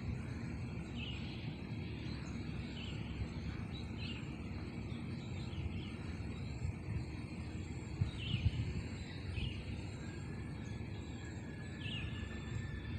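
Small birds chirping with short, high calls repeated every second or so, over a steady low background rumble of outdoor ambience.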